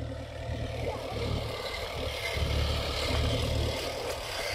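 Compact loader's engine running steadily, over a strong, uneven low rumble.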